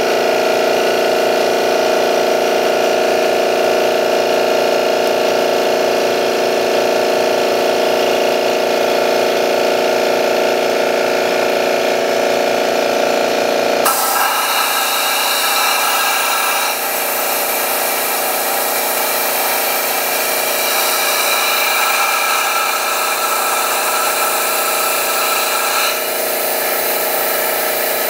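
Turbocharger-based jet engine running at a steady speed: a continuous whine made of several held tones over a rushing noise. The tone shifts abruptly about halfway through, then holds steady again.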